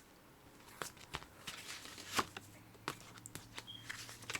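A Blu-ray case being handled: scattered soft clicks and rustles of plastic, with a louder click about two seconds in.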